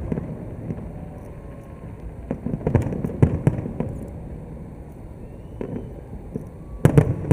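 Fireworks going off: a cluster of sharp bangs and crackles about two and a half seconds in, and another burst near the end.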